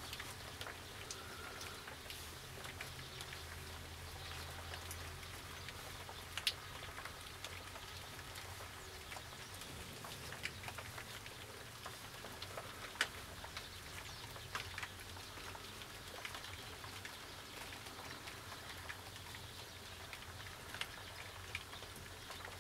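Irregular soft pattering with scattered sharp ticks, two louder ones about six and thirteen seconds in, over a faint steady low hum.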